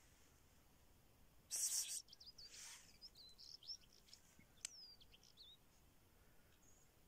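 Small birds chirping faintly in quick, high, rising and falling notes from about two seconds in. Just before them comes a brief rustling noise, the loudest sound.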